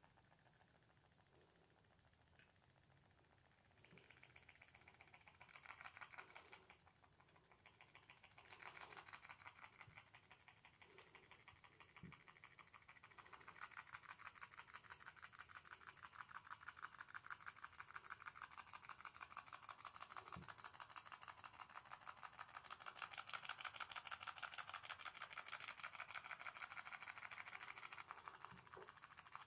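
Tealight-heated pop-pop boat made from can aluminium, its boiler popping in a fast, even putter. The popping starts about four seconds in, falters briefly, then settles into a steady run that grows louder.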